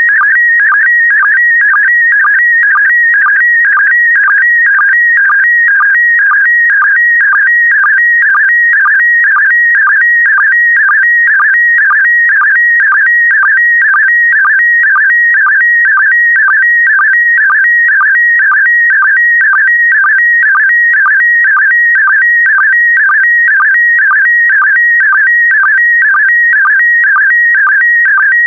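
PD120 slow-scan TV (SSTV) image signal: a loud, high, steady electronic tone that dips briefly in pitch about twice a second, in an even rhythm. Each dip is the sync pulse that starts a new pair of image lines.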